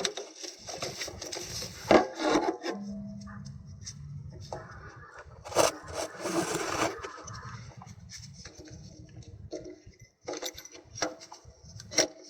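Handling noises: a few sharp clicks and knocks, with stretches of rubbing and scraping in between.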